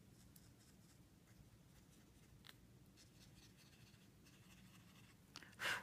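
Near silence with the faint scratching of a Wink of Stella clear glitter brush pen working over stamped balloons on cardstock, a faint click about halfway through, and a brief louder swish just before the end.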